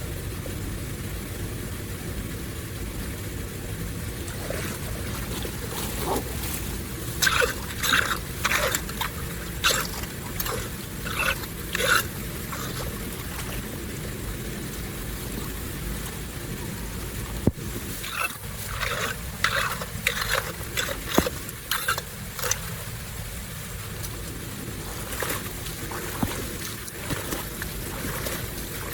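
Water flowing steadily, with two spells of splashing and scraping, about seven seconds in and again around eighteen seconds in, typical of debris being pulled from a clogged drain.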